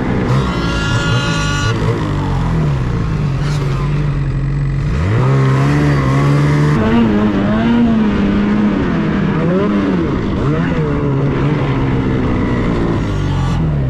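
Ski-Doo Freeride snowmobile's two-stroke engine running under throttle, revving up sharply about five seconds in, then holding and wavering in pitch.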